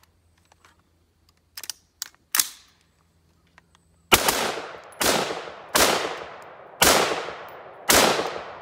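Bushmaster AR-15 rifle firing five shots about a second apart, each followed by a trailing echo: a bump-fire attempt that gives separate single shots instead of a rapid stream. Before the shots, a few light clicks and knocks of the rifle being handled.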